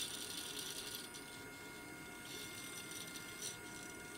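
Small two-phase AC servo motor whirring through its brass reduction gear train in short spurts, the longest about the first second. It is the altitude sensor's servo loop chasing the aneroid capsules as they are pushed, driving the LVDT's E-bar back to its null position. A faint steady hum runs underneath.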